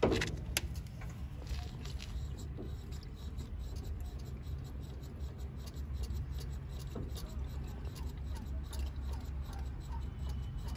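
Hands working in a backhoe loader's diesel engine bay: a sharp knock at the start, then light scraping and small ticks over a steady low hum.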